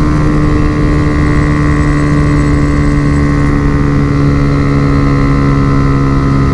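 Honda Fan 125's single-cylinder four-stroke engine held at steady high revs on a flat-out run, with wind rush on the microphone. The engine is running short of breath at the top end, which the rider puts down to the stock carburettor.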